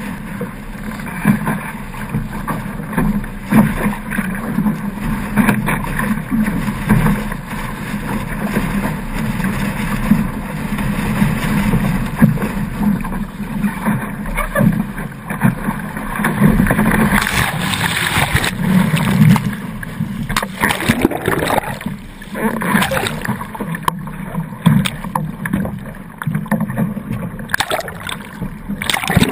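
Wind buffeting the camera's microphone over water rushing and slapping against the hull of a Sabre sailing dinghy driving hard through chop. The splashing grows heavier and more broken in the second half, and near the end the camera goes under the water as the boat capsizes.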